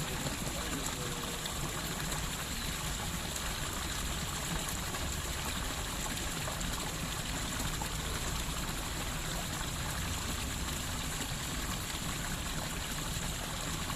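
Water fountain splashing steadily, an unbroken rush of falling water.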